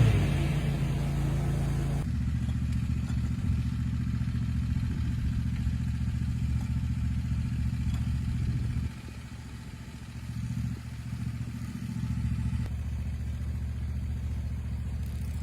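A riding lawn mower's engine running steadily at a low, even drone. It drops away for a moment about nine seconds in, then picks back up.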